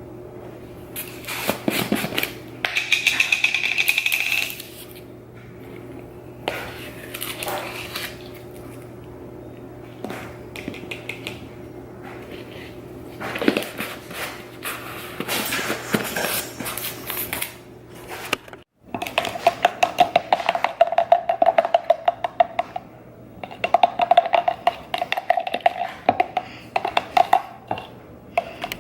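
Background music with drums and percussion.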